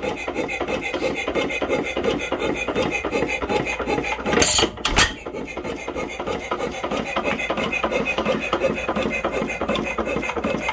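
1905 Domestic side-shaft hit-and-miss engine running, with a fast, steady clatter from its valve gear, governor and side-shaft drive. It fires with one loud bang about halfway through and coasts on its flywheels between firings.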